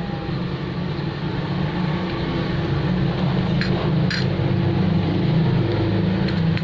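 A steady low mechanical hum over a rushing noise, with two short clicks around the middle.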